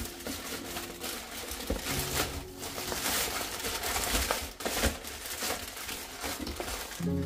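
Plastic poly mailer bag crinkling and rustling as it is folded and handled, with background music coming back in near the end.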